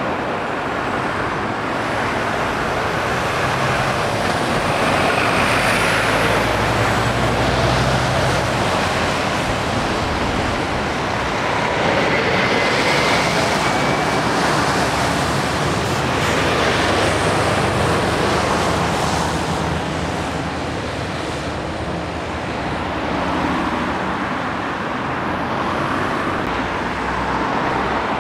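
Articulated lorries and cars going round a roundabout: diesel engine noise and tyre noise swell and fade as each vehicle passes. A low engine note stands out a few seconds in, and a lorry passes close by about midway.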